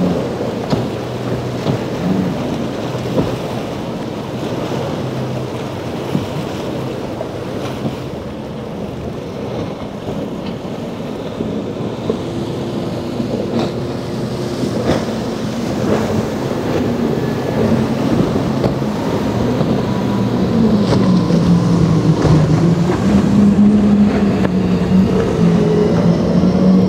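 Outboard boats running fast through rough chop, with rushing water and spray and wind buffeting the microphone. A single outboard drones on a small skiff, then a Midnight Express center-console's five Mercury Racing 450R supercharged V8 outboards drone with a wavering pitch that grows louder over the last third as the boat passes.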